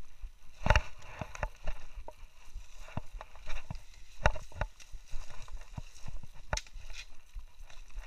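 Footsteps on a rocky, brushy trail: irregular knocks and crunches underfoot with branches rustling and scraping past. A few steps land harder, about a second in, near the middle and past the halfway point.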